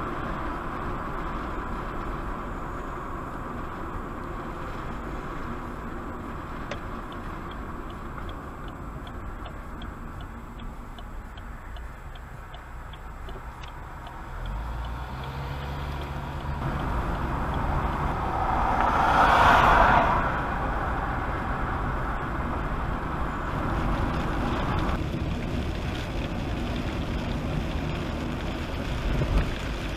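Car interior driving noise, with steady engine and tyre rumble. A turn signal ticks evenly for several seconds, then the engine note climbs as the car accelerates. A loud rushing swell rises and falls over about two seconds near the middle and is the loudest sound.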